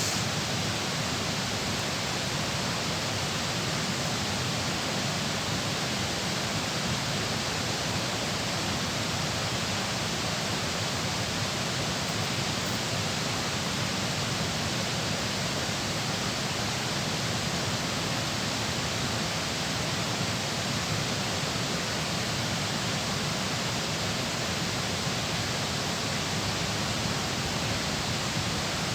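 Steady, unbroken rush of fast-flowing water at a dam.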